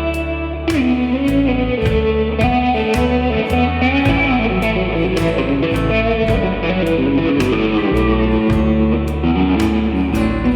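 Country-rock band playing an instrumental break: a guitar lead with bending, gliding notes over upright bass and drums, the drums hitting about twice a second.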